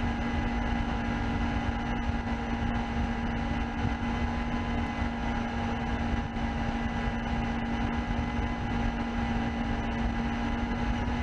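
A steady hum holding one constant low pitch over an even hiss.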